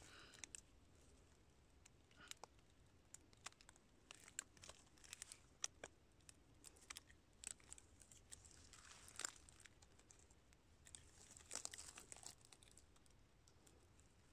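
Soft, scattered crackling, snapping and rustling of dry leaf litter, pine needles and bark as gloved hands dig around and loosen a reishi mushroom at the foot of a stump, with a few denser rustles about nine and twelve seconds in.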